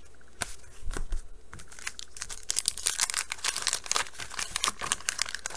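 Waxed-paper wrapper of a 1989 Bowman baseball card pack being crinkled and torn open. A few separate clicks come first, then a dense run of sharp crackles from about two and a half seconds in.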